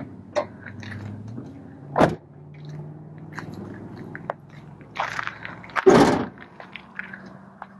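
Clicks from inside a Ford E350 cab as the hood release is worked, then the driver's door shutting with a sharp thud about two seconds in. Near the end, louder scuffing and crunching as someone steps round to the front of the van on gravel.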